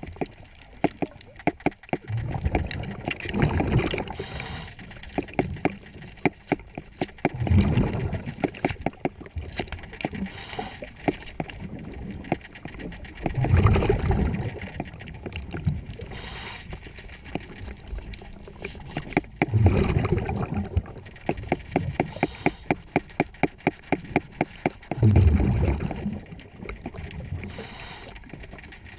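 Scuba diver breathing underwater through a regulator: exhaled bubbles rumble out in bursts about every six seconds, five times, with rapid even clicking in between.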